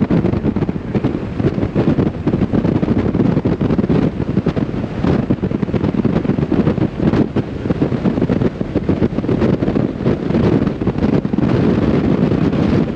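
Wind buffeting the microphone of a moving Jeep Wrangler: a loud, rough rumble with constant crackling flutter.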